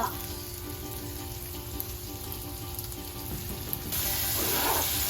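Pork belly, garlic, onion and tomato sizzling in a hot frying pan, the sizzle growing louder and brighter about four seconds in.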